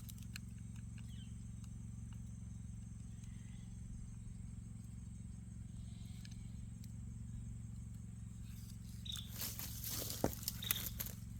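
Small plastic clicks and rattles of batteries being loaded into a trail camera and its case being handled, faint at first, with a cluster of louder clicks and rustling near the end. A few short high chirps also come near the end, over a steady low rumble.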